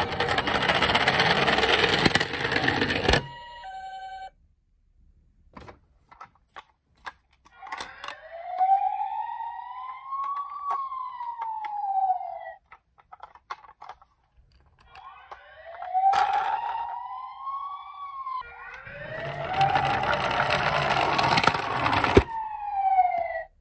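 Toy ambulances' electronic sirens wailing, each glide rising and falling in pitch, played by one toy after another. Two stretches of loud whirring noise come as toys roll down the slope, at the start and again near the end. Clicks of plastic toys being handled come in between.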